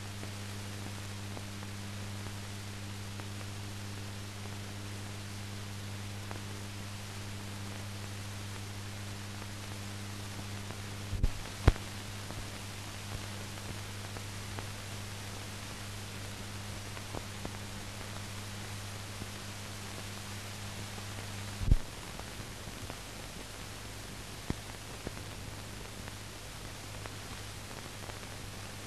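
Steady hiss with a low electrical hum: the noise floor of a silent film's empty sound track. The hum drops out in two steps, about eleven and twenty-two seconds in, and each drop is marked by a loud click.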